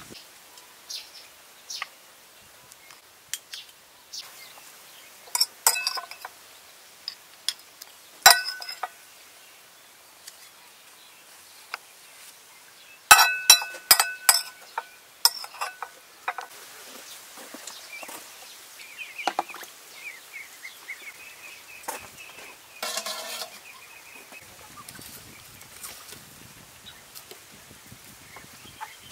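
Scattered clinks and knocks of dishes and utensils. The loudest part is a quick run of ringing clinks about halfway through.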